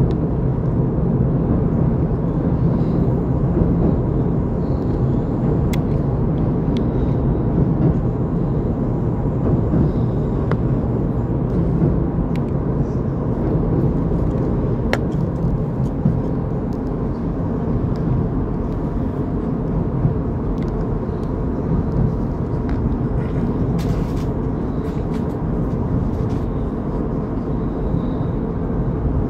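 Passenger train running steadily at speed, heard from on board: a steady low running noise of the carriage on the rails, with a few faint clicks.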